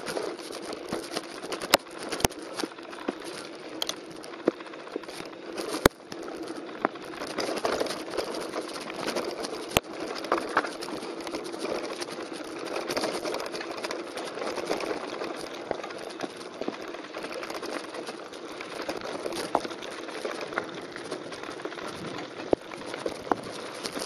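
Mountain bike tyres rolling over loose gravel and pebbles: a steady crunching hiss with scattered sharp clicks and rattles from the bike.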